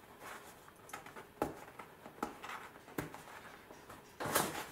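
Small cardboard box being opened by hand: a few faint clicks and rustles of the flaps, then a louder rasp near the end.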